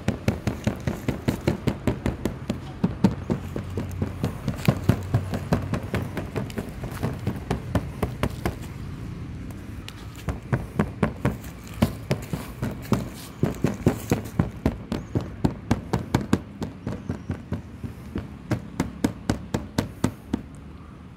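A long run of sharp clicks, several a second and irregular in spacing, with a brief lull about halfway through.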